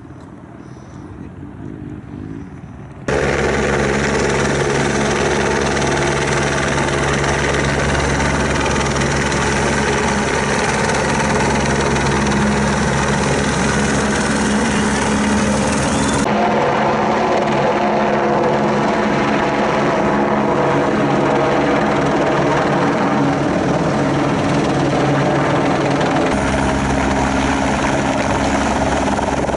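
Light turbine helicopters flying low, hovering and lifting off close by: a steady, pitched rotor and engine drone. It is fainter for the first three seconds, then suddenly loud, and changes abruptly in tone about 16 and 26 seconds in.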